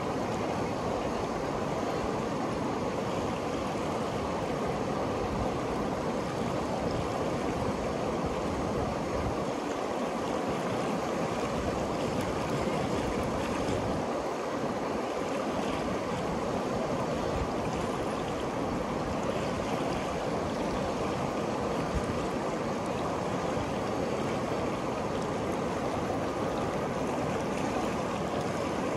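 The Ganges River flowing fast past its bank: a steady, even rush of moving water.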